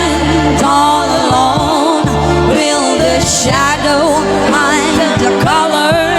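A song playing loud, a singer's voice with vibrato over heavy, sustained bass notes.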